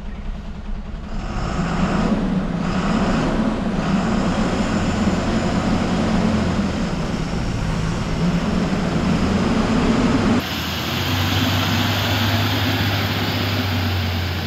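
Heavily loaded Ashok Leyland truck's diesel engine revving hard under strain as it tries to climb a steep grade. About ten seconds in the sound changes abruptly to a steadier, lower engine drone.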